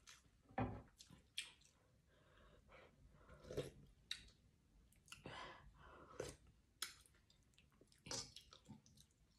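A person eating rice and chicken soup with a spoon: quiet chewing and mouth noises, broken by short clicks and a few brief sips.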